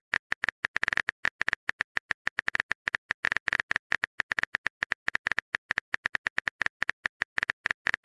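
Phone keyboard typing sound effect: a rapid, even run of light clicks, many per second, without a break.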